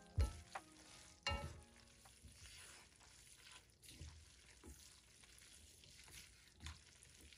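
Wooden chopsticks tossing hot noodles in an enamelled pan, with a faint sizzle. A few light knocks of the chopsticks against the pan come in the first second and a half, and softer clicks follow.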